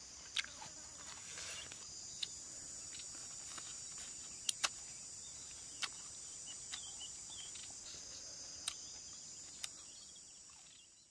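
Steady high-pitched chirring of an insect chorus, crickets or cicadas, with about seven sharp clicks scattered through, and the whole sound fading out at the end.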